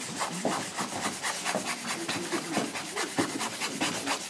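Handling noise: a camera's microphone rubbing and scraping against a person's clothing, making an irregular run of crackly scratches.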